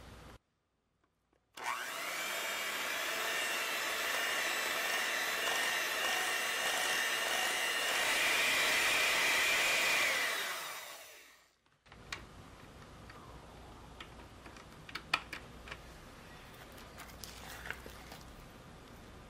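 An electric hand mixer starts up about two seconds in, and its beaters whirr steadily through soft butter and praline paste in a glass bowl. It winds down and stops about eleven seconds in. After that a rubber spatula scrapes and taps lightly against the glass bowl.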